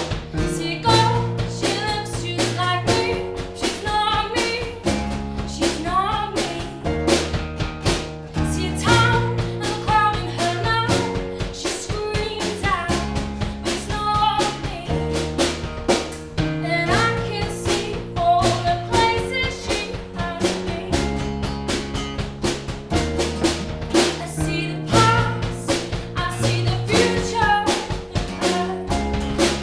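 A woman singing a pop song with a small acoustic band: steel-string acoustic guitar, keyboard and a drum kit keeping a steady beat.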